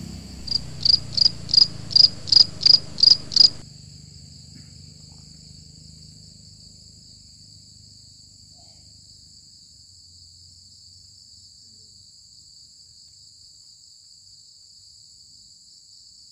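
Night-time crickets: a nearby cricket gives about nine loud high chirps, roughly three a second, then stops suddenly a few seconds in. A steady high-pitched trill of other crickets carries on throughout.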